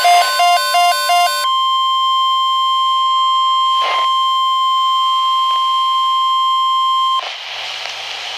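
NOAA Weather Radio 1050 Hz warning alarm tone, a loud steady single-pitched whine that cuts off sharply about seven seconds in, leaving radio hiss. For the first second and a half a landline telephone's electronic ringer warbles rapidly between two pitches over the tone.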